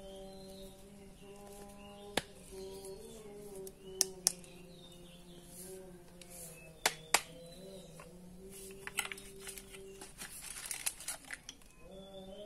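Sharp metallic clicks and taps as a screwdriver and small parts knock against an angle grinder's housing during reassembly, a pair about four seconds in and another pair about seven seconds in, followed by a stretch of crackly rustling from about nine to eleven seconds in. A steady drone of background music runs underneath throughout.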